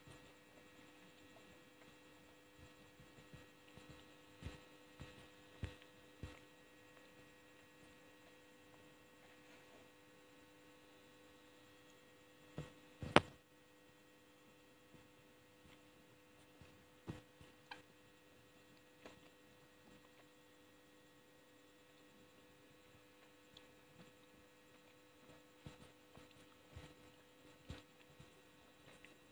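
Close-miked mouth sounds of chewing gummy candy: scattered soft, wet clicks, with one sharp snap about 13 seconds in as a bite is taken from a sugar-coated rainbow belt gummy. A faint steady electrical hum runs beneath.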